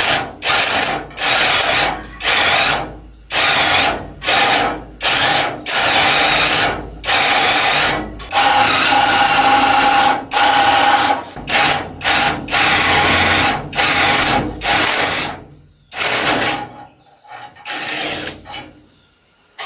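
Power drill run in repeated short bursts of about half a second to a second each, with one longer run of a few seconds in the middle. It stops about sixteen seconds in, leaving a few fainter short bursts.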